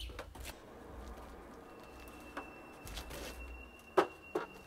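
A stepladder being lifted and stood against a house wall: a few light clanks as it is raised, then a sharp knock about four seconds in as it comes to rest, with a softer knock just after.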